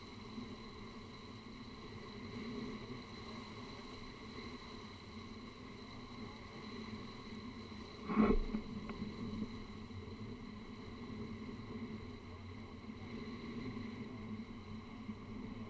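The raft's outboard motor as a steady, low hum with several even tones, pitched down because the audio is slowed to quarter speed. A single knock sounds about halfway through.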